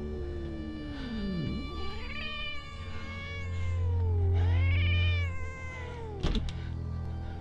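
A cat meowing in two long, drawn-out calls that rise and fall in pitch, over a low droning music score. A sharp click comes near the end as a lever door handle is pressed.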